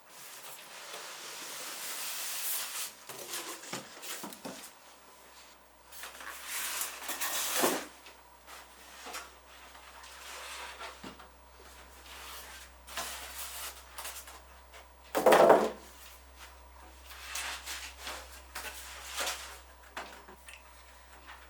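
Hands working on a PC build: rustling, scraping and sliding of parts and cables against the case, with scattered clicks and knocks. The loudest is a single knock about fifteen seconds in. A low steady hum comes in about five seconds in.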